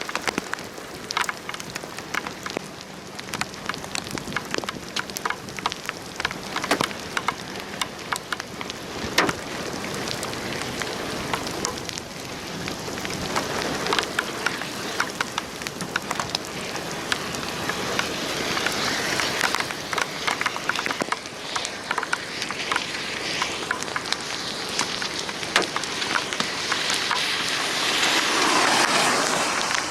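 Rain falling and hitting a hard surface, with many scattered sharp drop impacts over a steady rush of rain noise. It swells louder twice, the heaviest surge coming near the end.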